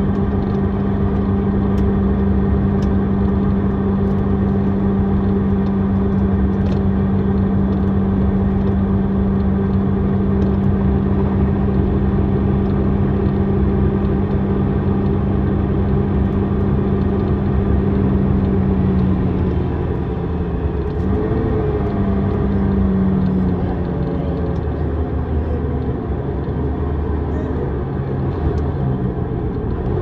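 Iveco Midirider bus's Iveco Tector six-cylinder diesel running under way, a steady drone at constant revs, until about two-thirds of the way through the note falls away and wavers as the revs drop.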